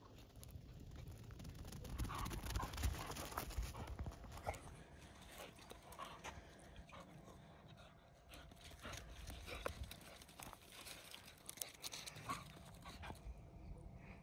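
Footsteps crunching on a gravel dirt road, with dogs scuffling and panting as they play-wrestle, over a low steady rumble.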